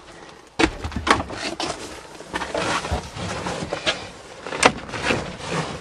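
A string of sharp knocks and clunks from handling the old Chrysler van, about seven in all, the loudest a little under five seconds in.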